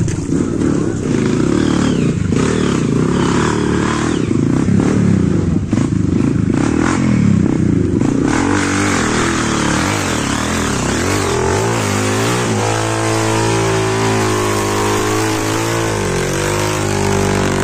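Dirt bike engines revving unevenly under load as a bike struggles through a deep mud rut, the pitch rising and falling in bursts, then settling into a steadier running note from about two-thirds of the way through.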